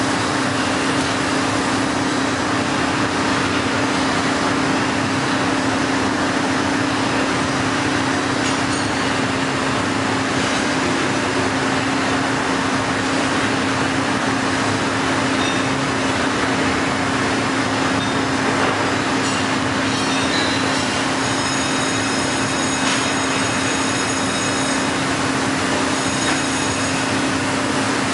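Heller four-roll CNC plate rolling machine running as it rolls a metal plate: a steady machine hum with a constant droning tone, joined by faint high-pitched squeaks about two-thirds of the way through.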